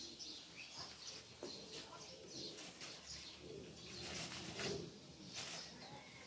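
Faint bird calls in the background, short high chirps scattered through, with a few soft clicks from hands working wet mushrooms in a steel bowl.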